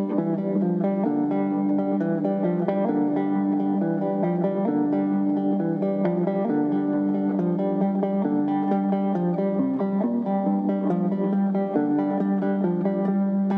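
Background music: plucked guitar playing a melody over steady low notes.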